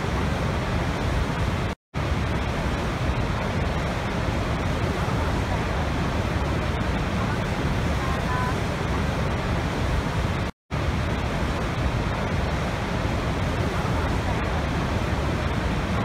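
Steady, heavy roar of Niagara's Horseshoe Falls and the rapids at its brink, a dense rush weighted toward the low end. It cuts out to silence twice, very briefly, about two seconds in and again about ten and a half seconds in.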